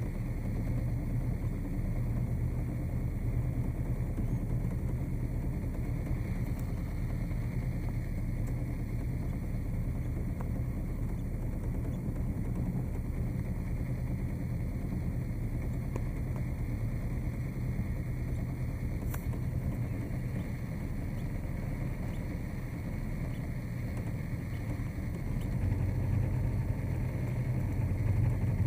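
Small motorboat's engine running steadily, a low hum that grows louder near the end.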